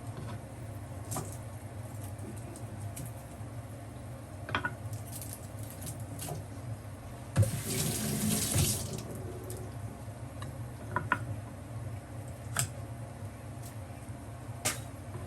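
Water rushing briefly for about a second and a half near the middle, as from a tap or being poured, with a few light clinks and knocks of cookware scattered through.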